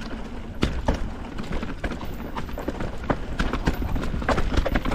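Mountain bike clattering down a rocky trail: irregular sharp knocks and rattles of the tyres and frame hitting rocks, over a steady low rumble.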